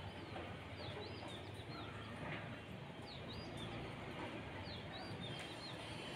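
Faint bird chirps, short high calls in small groups about a second in, around three seconds in and near five seconds, over a low steady outdoor background.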